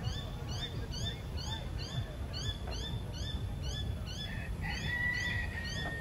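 A bird calling a rapid, regular series of short rising chirps, about three a second, which stops shortly before the end. A second, longer steady whistled note comes in near the end, over a low background rumble.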